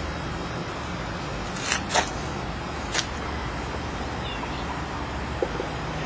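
Steady low outdoor background noise, with a few brief clicks about two and three seconds in.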